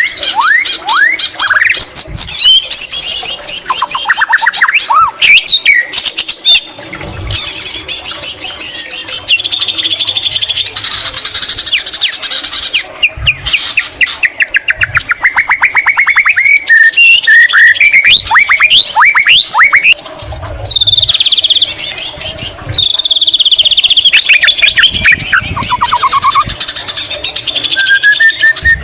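White-rumped shama singing loudly and without pause, a varied song of rapid trills, rising whistled sweeps and chattering repeated notes that includes greater green leafbird phrases in its repertoire. A few soft low thumps come underneath.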